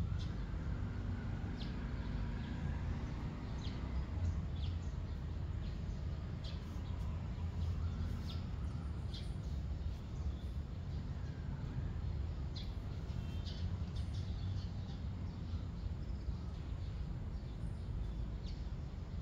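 Outdoor ambience: a steady low rumble with short, high bird chirps scattered throughout.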